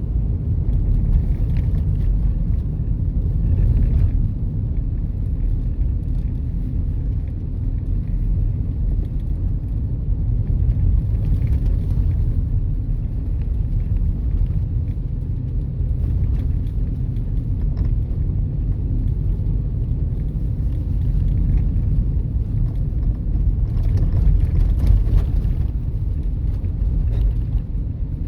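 Steady low rumble of a car being driven: road and tyre noise with the engine underneath, without a break.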